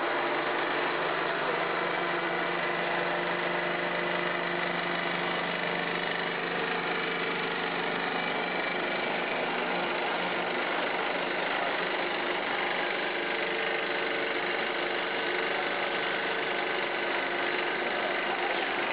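Running machinery of a waste engine oil vacuum distillation plant: a steady mechanical drone with a few held tones underneath, unchanging throughout.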